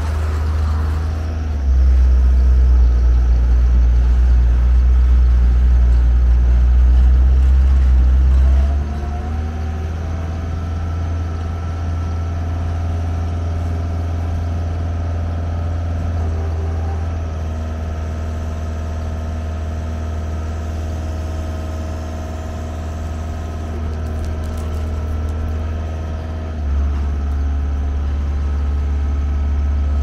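Bobcat S450 skid steer loader's diesel engine running under load as the machine drives and turns. It is louder in the first several seconds and again near the end. From about a third of the way in, a steady higher whine joins the engine while the loader arms hold the bucket raised.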